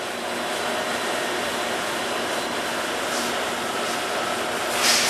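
Summit 36DC heavy-duty engine lathe, driven by a 35 hp DC motor, running at a steady speed: an even hum and hiss with a faint steady whine.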